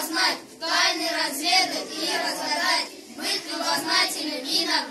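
A group of young boys' voices together in unison, voicing words with a lilting pitch.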